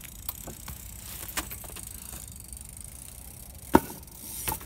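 BMX bike knocking and clattering on the pavement as it is ridden and hopped: light scattered clicks, then one sharp loud knock about three-quarters of the way in and a smaller one just before the end.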